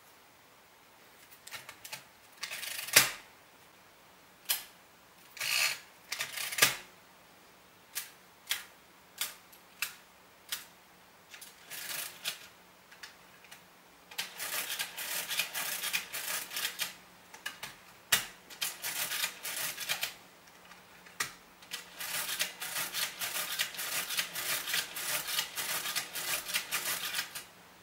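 Hand-cranked full-keyboard mechanical calculator being worked: separate sharp clicks of keys and levers over the first half, then from about halfway long runs of rapid mechanical clattering as the side crank is turned round again and again for a multiplication, with a short break of a few clicks between the two runs.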